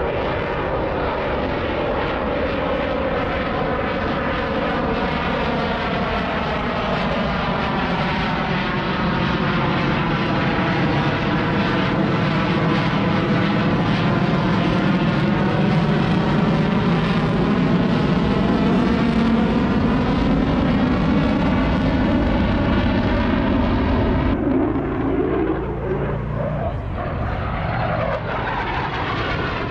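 Aircraft engine noise from a plane flying past, with a slow sweeping, phasing quality as it goes by. About 24 seconds in, the sound changes abruptly and then rises again, like another pass.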